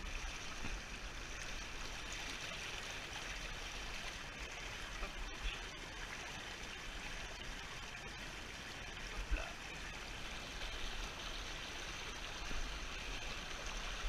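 Small rocky mountain stream rushing over stones: a steady noise of running water, with a short knock about nine seconds in.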